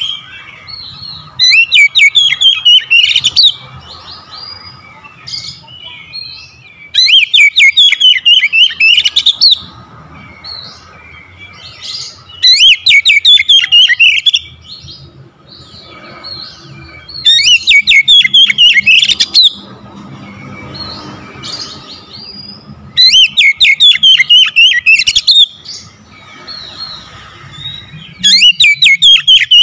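Oriental magpie-robin singing: six loud bursts of rapid notes, one about every five seconds, with softer chirps and whistles in between.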